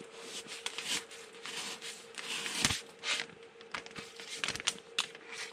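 A sharp knife slicing through a clear plastic sheet protector and paper: a string of irregular crinkling, tearing cuts, as a test of the blade's sharpness.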